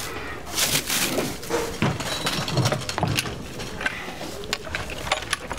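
Knocks, scrapes and clatter of gear being unloaded from a car's roof box: a wooden board being pulled out and carried, its metal fittings knocking, in irregular short strikes with scuffing in between.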